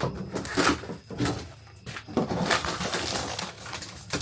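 A run of knocks, cracks and scrapes from demolition work, as the old motorhome's interior is pulled apart. The strikes come irregularly, about half a second to a second apart, with a cluster roughly two seconds in.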